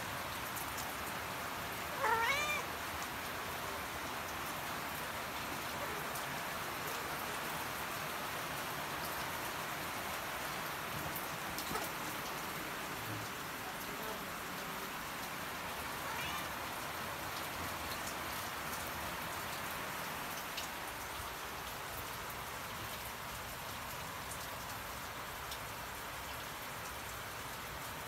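A mother cat meows once about two seconds in, calling to her kittens, and meows again faintly about halfway through, over a steady background hiss.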